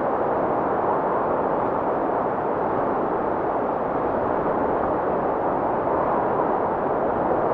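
Steady rushing wind noise, an even hiss with no gusts or breaks.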